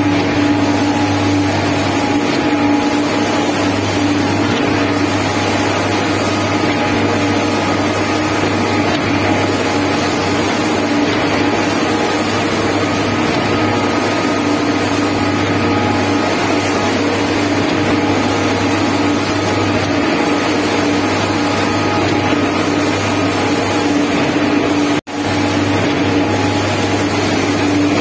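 Shotcrete spraying machine running while it sprays concrete: a loud, steady mechanical drone and hiss with a constant hum. It breaks off for a split second about 25 seconds in.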